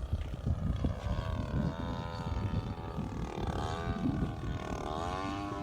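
Gas two-stroke engine and propeller of a quarter-scale RC Yak 54 aerobatic plane, droning in flight, its pitch rising and falling as the throttle changes and the plane passes. A low gusty rumble of wind on the microphone runs under it.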